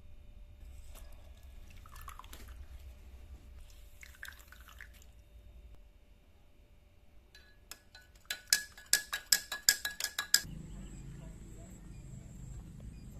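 Spoon stirring a drink in a glass, clinking against the side about a dozen times in quick succession near the end. Before that there are a few seconds of faint handling sounds.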